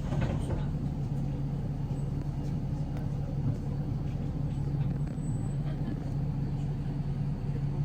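Steady low drone of a moving vehicle, with a few faint ticks and rattles over it.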